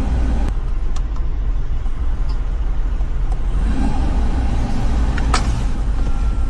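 Steady low rumble of the Toyota 4Runner's idling engine heard inside the cabin during an air-conditioning test. A few sharp clicks, typical of climate-control buttons and knobs being worked, come about half a second and a second in, with the loudest just past five seconds in.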